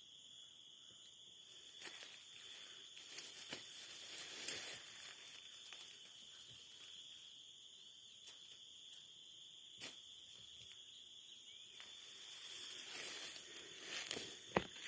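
Insects trilling in a steady, unbroken high drone, with scattered clicks and rustles, a louder stretch of rustling about two seconds in and again near the end.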